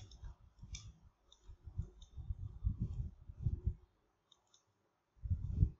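Computer mouse clicking: a handful of short, scattered clicks, two of them close together near the end, over dull low thumps.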